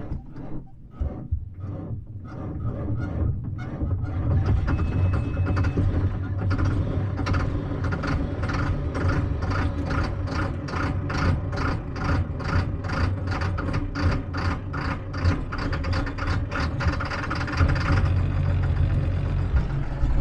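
A John Deere tractor's diesel engine starting from cold. It cranks slowly for a few seconds, catches about four seconds in, and runs with a regular pulse, growing louder near the end.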